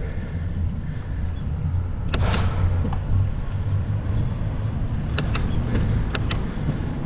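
Low, steady wind and road rumble on the microphone of a bicycle rolling along a paved road, with a few sharp clicks, two of them in quick pairs about a second apart.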